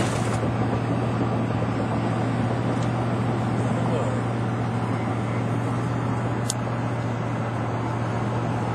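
Steady road and engine drone inside a moving car's cabin, with a constant low hum under it. A single short click about six and a half seconds in.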